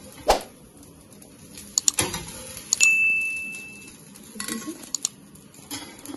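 Sharp metallic clinks and scrapes of a steel spatula as a crisp dosa is lifted off an iron tawa and laid on a plate. One strike near the middle rings on with a clear tone for about a second.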